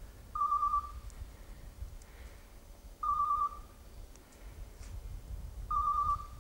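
Electronic beeper collar on an English setter giving three short, warbling beeps, evenly spaced about two and a half seconds apart: the locator's repeating signal that the dog is standing still on point. A low rumble runs underneath.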